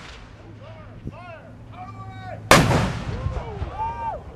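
A World War II tank's main gun firing a blank round: one sharp, loud blast about two and a half seconds in that echoes away over more than a second.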